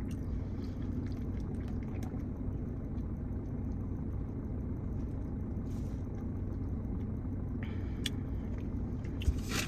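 Steady low rumble, with faint clicks of chewing.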